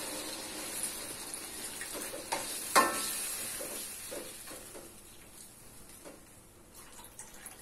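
Steel wok of chicken in sweet soy sauce sizzling just after water has been poured in, the hiss fading steadily as the water settles. A metal spatula stirs and knocks against the wok, with one sharp clank near three seconds in.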